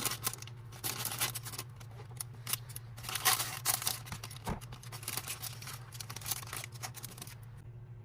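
Irregular rustling and light clicking of small plastic minifigure pieces and packaging being handled, dying away about seven and a half seconds in, over a steady low electrical hum.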